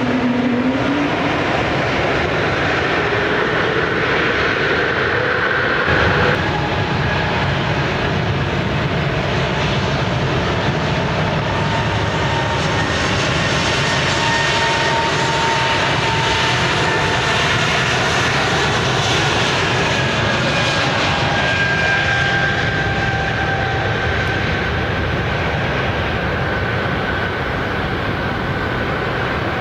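Airbus A220-100's geared turbofan engines running on the runway: a steady jet rumble with a high whine over it. The sound shifts abruptly about six seconds in.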